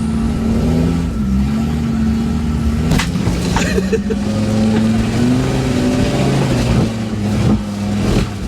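4x4 engine running and revving, its pitch rising and falling, with one sharp knock about three seconds in.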